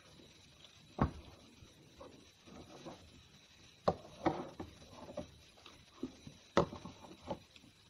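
Eating noises at a table: three sharp knocks, about one, four and six and a half seconds in, with softer clicks and rustling between, as a utensil meets the plate or bowl.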